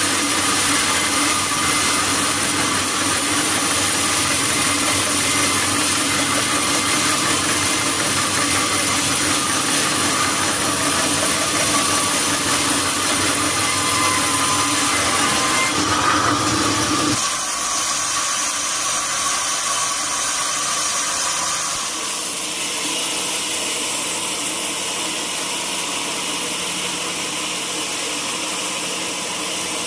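Sawmill machinery running steadily, a loud engine-like drone with a high whine. Its sound changes suddenly about 17 seconds in and again about 22 seconds in.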